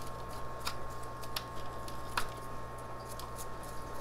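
A chopstick teasing apart the wet roots of a crabapple seedling: a few faint, scattered ticks and scratches over a steady low hum.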